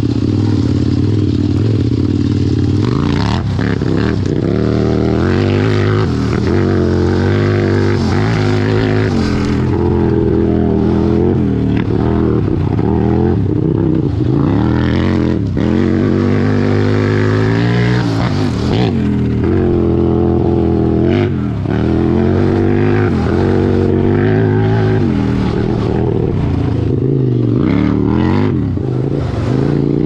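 Engine of a 100-horsepower Power Wheels 4x4 build being driven hard, revving up and dropping back again and again as the throttle is worked through the corners, heard from close behind.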